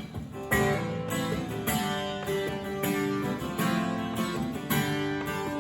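Acoustic guitar strumming a steady series of chords: the instrumental intro of a country song.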